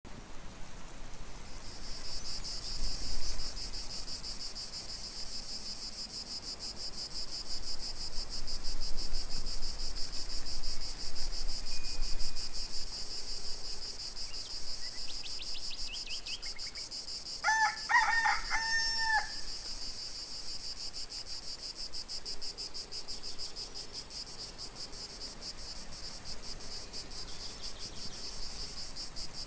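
A steady, fast-pulsing chorus of crickets chirping, with a rooster crowing once a little past halfway: a few short notes, then a long held call that drops off at the end. Wind rumbles on the microphone at times.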